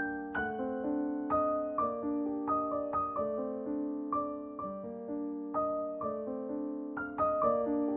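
Background music: a gentle solo piano piece, notes struck in a slow, even, arpeggiated pattern and left to ring.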